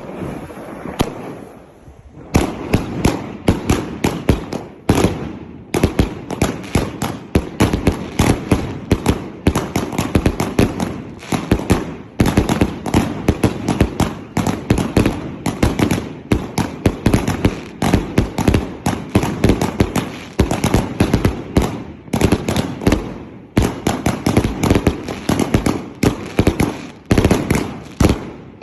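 A consumer firework cake with 1.5-, 2- and 3-inch tubes firing: rapid sharp bangs of shots launching and bursting, many a second, starting about two seconds in and running on with a few brief pauses.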